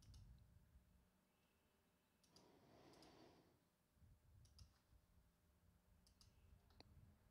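Near silence, with a few faint computer mouse clicks spread through it.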